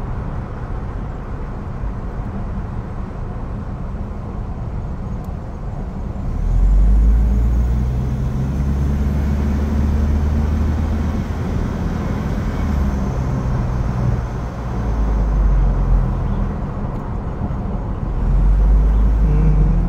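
Car engine and road noise heard inside the cabin while driving: a steady low rumble that swells louder a few times as the engine note shifts.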